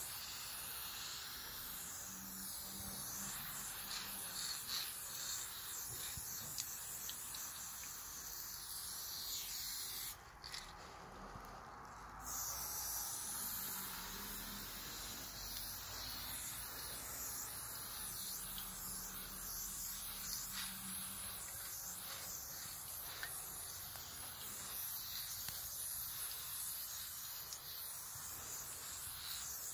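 Aerosol spray paint can hissing as red paint is sprayed onto a wall, in long steady passes, stopping for about two seconds a third of the way through before spraying resumes.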